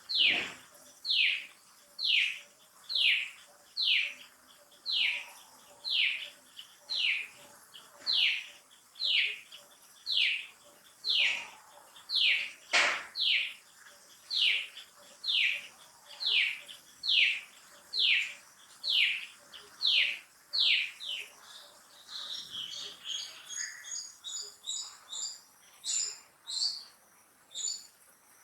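A baby macaque crying: a high squeal that falls steeply in pitch, repeated about once a second. Near the end it gives way to quicker, higher chirps.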